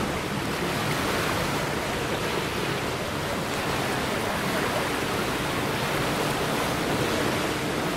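Steady rushing noise of wind and small waves washing onto a sandy shore.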